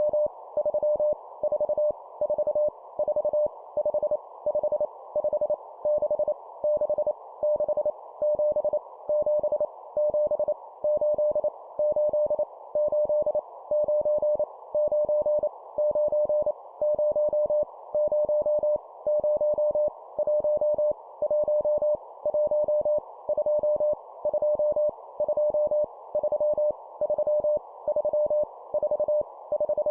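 Morse code (CW) sent at 25 words per minute as a steady mid-pitched beep keyed on and off in dots and dashes, spelling out numbers, each repeated three times, over a constant hiss.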